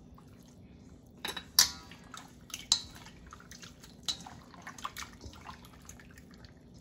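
Hands mixing pork belly in soy sauce marinade in a stainless steel bowl: wet squishing of the meat, with a scatter of sharp clinks and knocks against the metal bowl, the loudest about a second and a half in.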